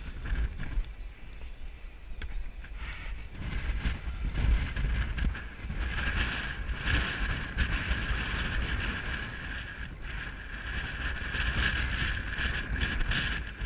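Wind buffeting the microphone: a gusting low rumble, with a steadier hiss that comes up about six seconds in.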